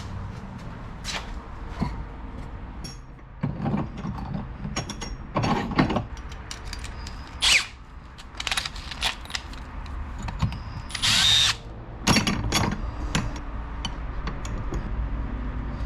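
Workshop handling noise: irregular clicks and knocks of tools and small metal parts, with a short run of a power drill about two-thirds of the way through.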